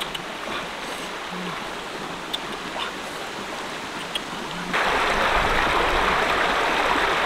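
A rocky stream runs steadily, with a few light taps of a stone pestle in a stone mortar. About five seconds in, it gives way to a much louder rush of water cascading over rocks.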